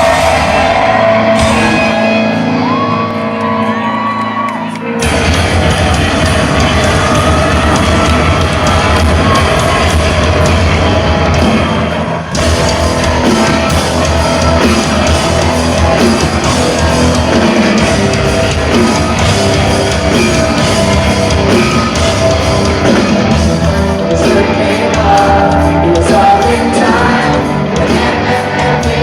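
Rock band playing live in a large hall, with a singer singing and yelling. A quieter opening gives way to the full band about five seconds in.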